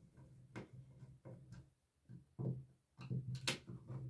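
Screwdriver working the screws out of a light-switch wall plate: faint scattered clicks and handling knocks, the sharpest about three and a half seconds in.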